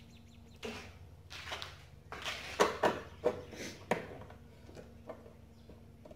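Wooden crates knocking and clattering as they are handled and fitted together: a run of sharp knocks over the first four seconds, then a few fainter ones.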